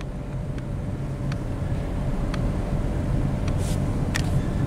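Inside a moving car on a wet road: a steady low rumble of engine and tyres, with a few scattered light ticks.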